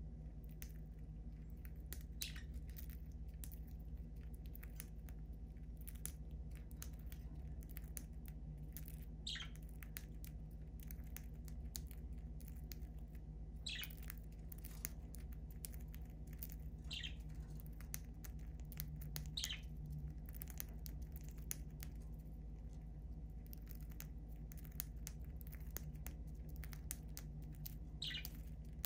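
Budgerigars pecking and cracking seed from a hand, a steady run of small clicks, with about six short high chirps scattered through. A low steady hum runs underneath.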